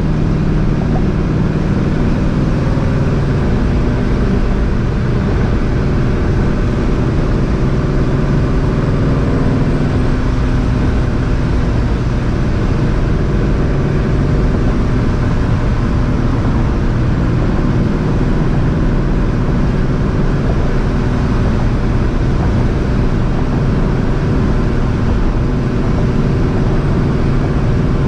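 Supercharged 2004 Ford Mustang GT's 4.6-litre two-valve V8 running steadily at a cruise through a catless, straight-piped exhaust. The engine note holds an even pitch, with no big revs or shifts.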